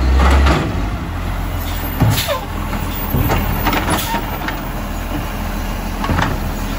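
Side-loader garbage truck's diesel engine running at the kerb while its hydraulic pick-up arm reaches out to grab a wheelie bin. A strong low rumble comes in the first half second, and short knocks and clunks come every second or so.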